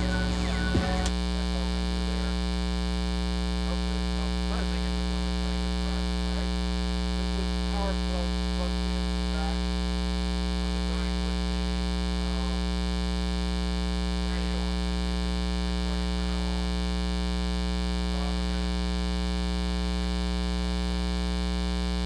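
Steady 60-cycle mains hum, a low buzzing drone with a stack of overtones, that goes on unchanged with the boomboxes silent. The uploader puts it down to the camera being powered from its AC adapter while recording. A click sounds about a second in.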